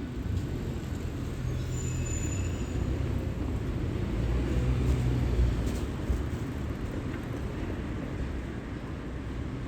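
A vehicle passing: a low rumble that builds to a peak about five seconds in and then fades, with a brief high squeal about two seconds in.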